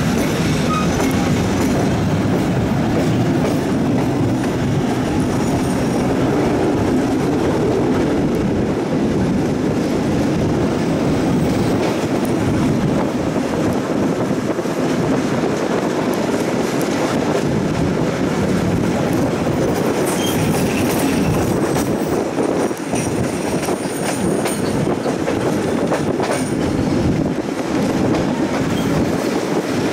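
Tait 'Red Rattler' electric suburban train rolling steadily through the yard, its wheels clattering over the points and rail joints, heard from an open window of the carriage. In the second half a high wheel squeal rises over the rumble as the train takes the curves.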